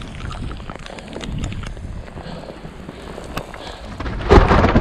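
Wind buffeting the microphone as a low rumble, with scattered small clicks and a louder rush of noise near the end.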